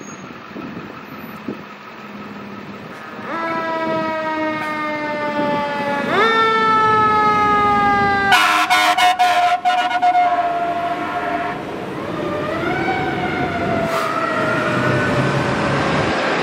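Fire engine's siren wailing as it pulls out on a call: each wail jumps up quickly and then falls slowly, repeating. About eight seconds in comes a burst of short, loud horn blasts, then the siren winds up and falls again as the engine drives off.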